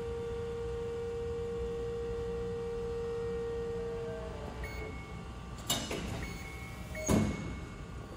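Amada FBD-5020 hydraulic up-acting press brake running with a steady whine over a low hum. The whine stops about halfway through, and two sharp clunks follow, the second louder.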